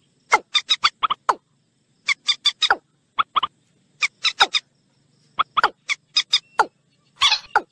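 Common moorhen and watercock calls played as a bird-lure recording: runs of two to seven short, sharp, falling call notes in quick succession, separated by brief pauses, with a longer, harsher call near the end.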